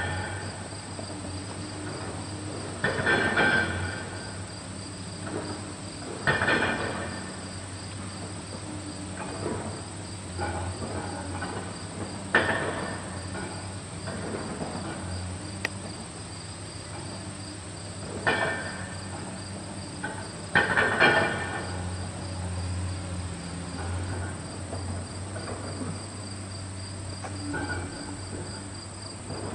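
Insects chirping in a high, fast, even pulse over a low steady hum, with louder rushing bursts of about a second every few seconds.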